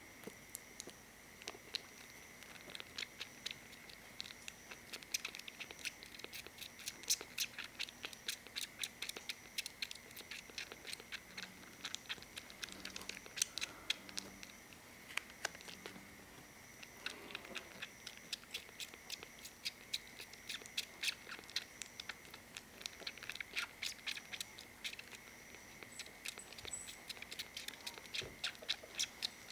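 Young kitten suckling milk from a nursing bottle's rubber teat: rapid wet clicking and smacking of its mouth, several clicks a second in irregular runs.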